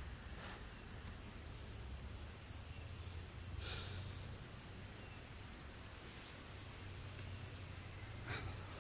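Forest ambience: a steady high-pitched insect drone over a low background hum, with two brief short noises, about four seconds in and near the end.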